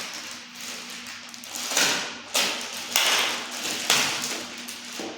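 Packaging being handled during an unboxing: rustling with several sharp taps and knocks, the loudest about halfway through.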